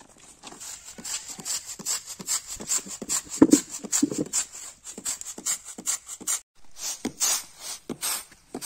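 Split mung dal being winnowed on a woven bamboo winnowing tray (kulo): rhythmic tosses, about three a second, each a dry rattle of the grains against the bamboo, with a short break about six seconds in. This is the stage where the husks loosened in the stone hand mill are shaken out of the dal.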